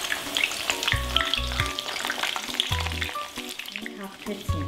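Eggplant slices frying in hot oil in a skillet, a dense sizzle of small crackles that thins out near the end. Background music with low bass notes plays underneath.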